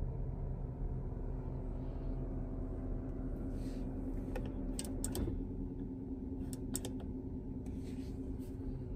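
Porsche 957 Cayenne GTS's V8 idling steadily, heard from inside the cabin. From about four seconds in, a series of sharp clicks, several in quick pairs, as the centre-console ride-height switches are pressed to lower the air suspension.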